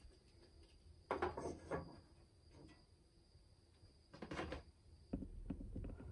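Cardboard 12-pack drinks box being handled close by: scraping and rustling about a second in and again around four seconds, then a run of soft knocks near the end.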